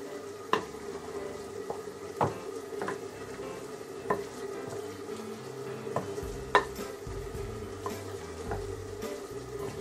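A spoon stirring a moist mixture of cooked rice, broccoli and grated cheese in a glass bowl, with a scraping, mushy sound and about half a dozen sharp knocks of the spoon against the glass.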